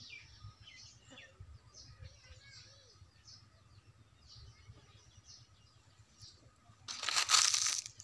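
Faint bird chirps in the background, with a loud rustling hiss about seven seconds in that lasts about a second.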